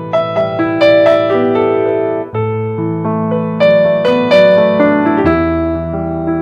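Background piano music, a gentle melody over sustained chords.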